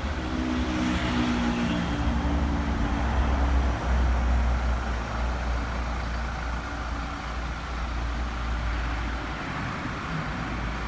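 A motor vehicle running, heard as a steady low rumble with road or engine noise over it.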